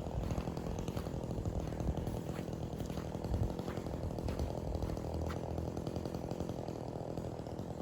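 Small gasoline engine running steadily at low speed, idling without revving, with a few faint ticks over it.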